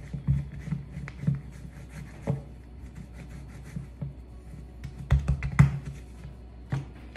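Hands kneading a small ball of shortcrust pastry dough on a kitchen worktop: soft irregular thumps and rubbing against the counter, with two louder knocks a little after five seconds in.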